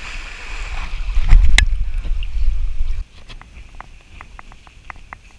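Water splashing and churning after a person jumps feet-first into a river, with a heavy low rumble. It cuts off abruptly about three seconds in, leaving only faint light clicks.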